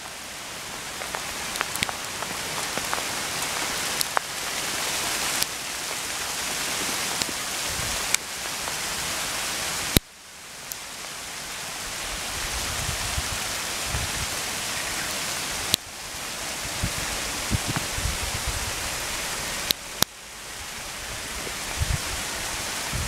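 Heavy hail of small stones, about 5 mm across, pelting a street, lawns, trees and parked cars: a dense, steady hiss with scattered sharp clicks of stones striking close by. The sound drops away abruptly twice, about ten and twenty seconds in, and swells back up each time.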